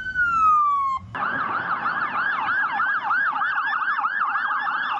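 Police car siren: a wail sliding down in pitch, then about a second in it switches to a fast yelp, rising and falling about four times a second.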